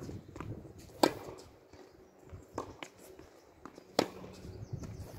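Tennis rally: a racket striking the ball with a sharp loud hit about a second in and another about four seconds in, with a fainter hit from the far end of the court between them.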